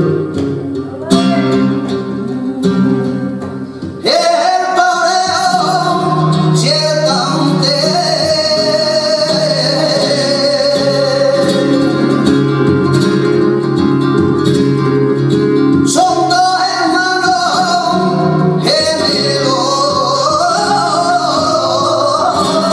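Flamenco tangos played live: flamenco guitar strumming alone for about four seconds, then a male flamenco singer comes in with long, wavering sung phrases over the guitar.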